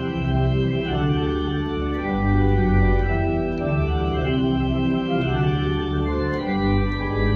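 Organ playing slow, held chords with a moving bass line, in a hymn medley.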